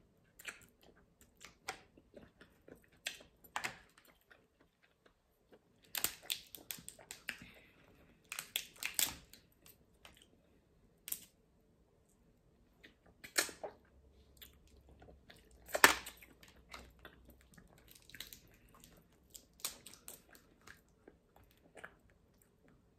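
Close-up eating of Maryland blue crabs: shells picked apart by hand and crab meat sucked and chewed, heard as scattered short bursts of crunching and mouth sounds, the loudest about 16 seconds in.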